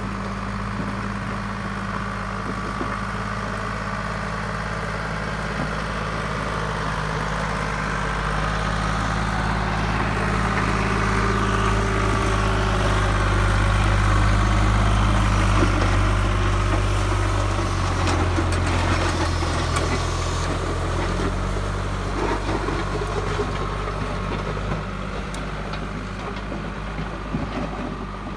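Farm tractor's diesel engine running steadily as it tows a road grader along a dirt forest road. It grows louder as it passes close by about halfway through, then fades as it moves away.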